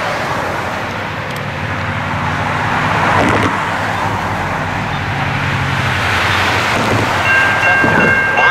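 Steady rumble of an approaching diesel-hauled freight train. About seven seconds in, the grade-crossing warning bell starts ringing as the crossing activates.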